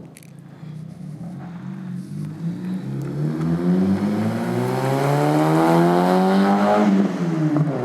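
Car engine accelerating hard, its pitch climbing steadily and getting louder for several seconds, then dropping about seven seconds in.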